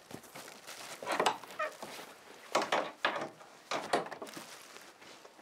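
A padlock and metal hasp bar on a wooden hut door being unlocked and worked loose: a few separate metallic clicks, clanks and knocks on the wood.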